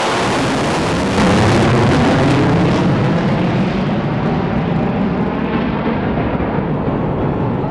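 Jet noise from a USAF F-35A Lightning II's single Pratt & Whitney F135 turbofan engine as the fighter flies its demonstration. The noise jumps louder about a second in, then slowly eases off.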